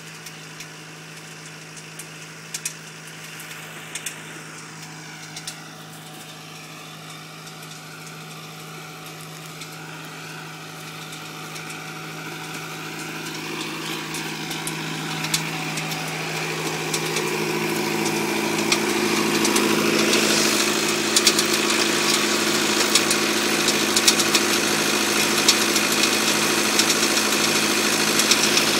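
Fiat 665C tractor engine running steadily to drive a Swarz forestry winch. It grows louder over the middle stretch and then holds level, with a slow regular pulse and occasional sharp clicks.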